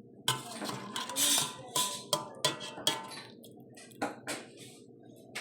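Kitchen utensils and cookware clinking and knocking, about eight irregular strikes over the first four seconds or so.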